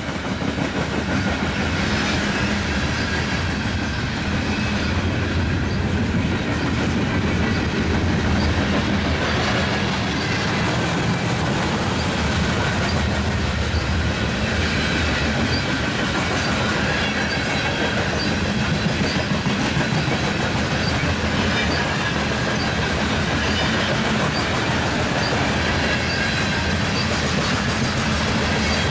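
Loaded coal hopper cars of a freight train rolling steadily past, wheels clicking over the rail joints, with a faint wheel squeal at times.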